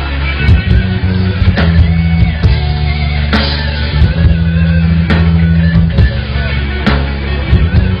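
Live rock band playing a passage without singing: guitar over heavy, sustained low notes, with drum hits coming regularly about once a second.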